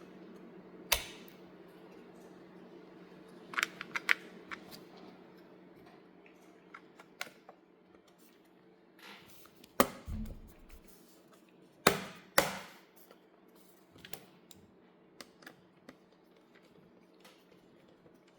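Scattered sharp clicks, snaps and taps of hands and tools working on the plastic and metal parts of a laptop during a RAM upgrade, a few close together about four seconds in and the loudest near ten and twelve seconds, over a steady low hum.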